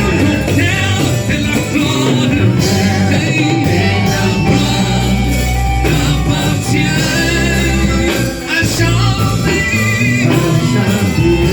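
Worship band music with a steady bass line and drums, and singing over it.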